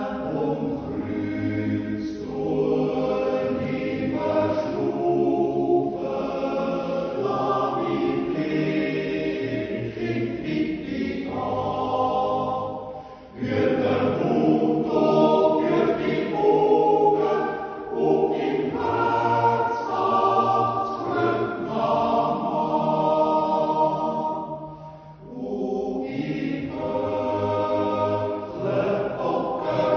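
Men's yodel choir singing a Swiss yodel song (Jodellied) a cappella in sustained chords. The singers break briefly between phrases about 13 and 25 seconds in.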